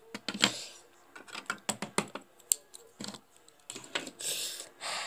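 Small hard plastic toy figures clicking and tapping against each other and a plastic toy couch as a hand picks them up, a quick run of irregular light clicks with a couple of brief rustles.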